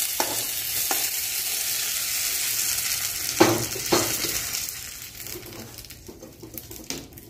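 Hot mustard-oil tempering of black mustard seeds, chillies and curry leaves sizzling as it is poured onto coconut chutney: a steady hiss that dies away over the last couple of seconds. Two knocks of the spoon against the pan come about three and a half and four seconds in.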